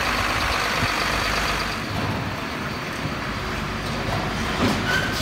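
Diesel engine of a crane lorry running steadily while its hydraulic loader crane lifts an underground waste container. A faint high steady whine over the engine fades about two seconds in.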